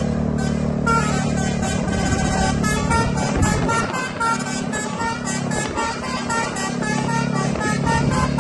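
Bus's multi-tone 'telolet' musical air horn playing a tune, with a fast, steady beat running under it.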